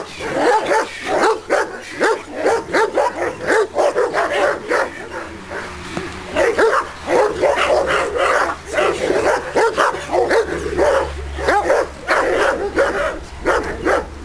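Caucasian shepherd dog (Caucasian ovcharka) barking rapidly and without a break, in loud volleys of several barks a second. This is guard barking at a helper in a padded protection suit.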